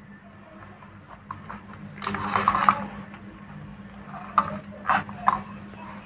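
Wires and parts being handled on a switch board mounted on a metal plate: a scraping rustle about two seconds in, then three sharp clicks near the end.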